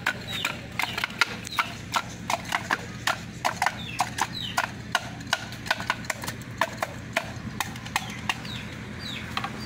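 Wooden pestle pounding fruit in a tall mortar for rujak bebek: a steady run of short knocks, about three a second.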